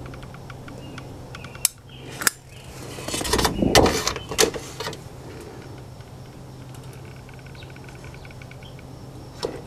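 Hand caulk gun and flashing being handled while a bead of construction sealant is laid along the flashing's edge: two sharp clicks, then a clatter of knocks and rubbing about three to four seconds in.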